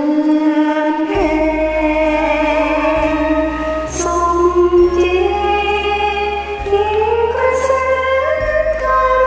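Instrumental karaoke backing track: a slow, sustained melody line over held chords, with a bass note that changes every second or two.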